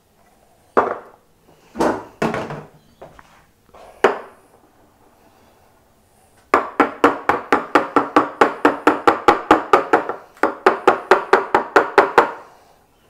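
Coffee gear knocked on a hard kitchen surface: a few single knocks, then a fast, even run of ringing taps, about five a second, that breaks off briefly and starts again before stopping.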